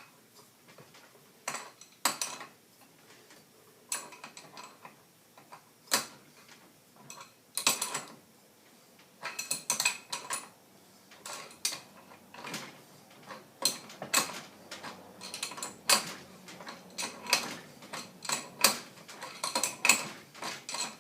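Irregular metallic clicks and clinks of hand tools working a pulley puller's forcing screw to press a rusted-on pulley off a power steering pump, the taps bunching closer together in the second half.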